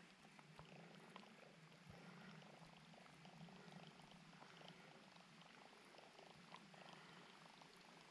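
Faint low whirr with fine rapid ticking from a fishing reel being cranked to retrieve a lure.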